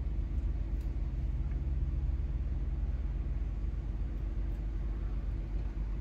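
A steady low mechanical hum inside a camper van's cabin, with an even drone over it.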